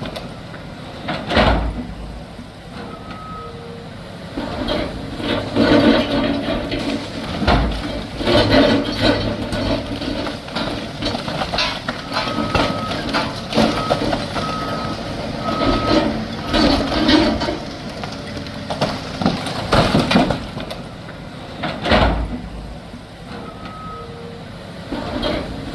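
Building demolition: heavy equipment running with debris crashing and scraping, including several loud impacts. A machine's backup alarm beeps in short runs, most often near the middle.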